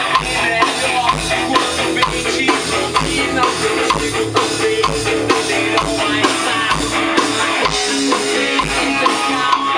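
Rock music with drum kit and guitar playing, over a steady kick drum beat.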